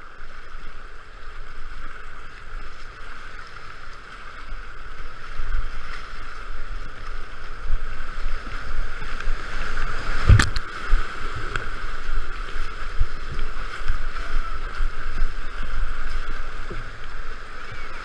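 Whitewater rapids rushing and splashing around a kayak, with paddle strokes and waves breaking close by; the rush grows louder from about five seconds in, and a sharp knock comes about ten seconds in.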